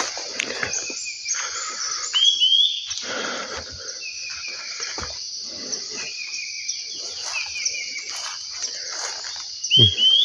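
Birds chirping with short rising calls over a steady high-pitched insect drone, with footsteps rustling through low ground cover.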